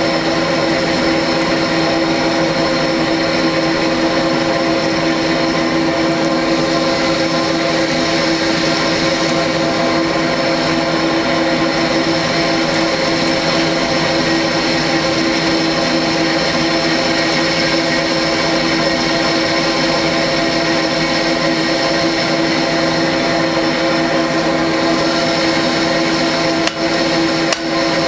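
Electric blower feeding air to a portable coal forge, running steadily with a constant motor hum and fan whine. A couple of brief knocks come near the end.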